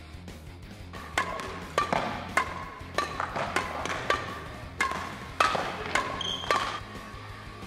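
Badminton rackets striking a shuttlecock in a quick back-and-forth rally: about ten sharp, echoing pocks roughly every 0.6 seconds, starting about a second in. Background music plays underneath.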